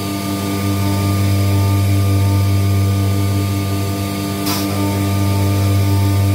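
CNC router spindle milling a plastic plate: a steady machine hum with strong low tones and an even pulsing, broken by one short burst of noise about four and a half seconds in.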